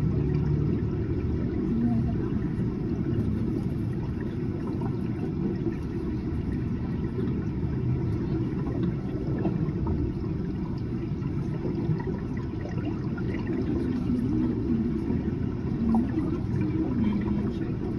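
Steady low rumble inside the cabin of a Disneyland ride submarine as it moves along its underwater route.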